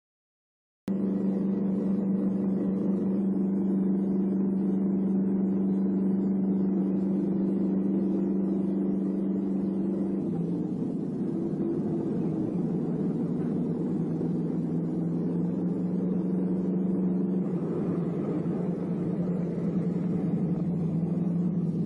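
A loud, steady engine drone with a fixed pitch that starts about a second in. The pitch steps down about ten seconds in and shifts again near the end.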